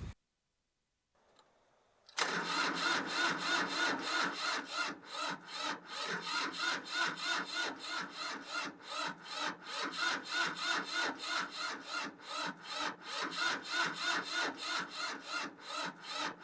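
Electric starter cranking the Mitsubishi MTE2000D's three-cylinder diesel, beginning about two seconds in, with an even pulsing of about three beats a second, and the engine not catching. The tractor won't start; the owner thinks this is because of corroded battery terminals.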